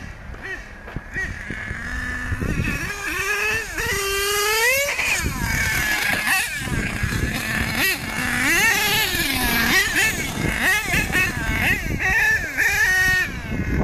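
HPI Savage nitro RC monster truck's small two-stroke glow engine revving in bursts, its pitch climbing and dropping over and over as the throttle is worked.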